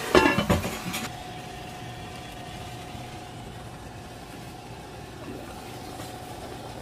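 Enamelled cast-iron lid set down on a Dutch oven, clattering against the rim a few times in the first second. A steady hum runs on after it.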